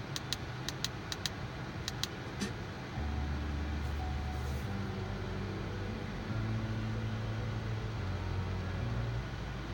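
Car steering-wheel control buttons clicking, about eight quick presses in the first two and a half seconds. After about three seconds a louder low hum sets in and shifts pitch in steps.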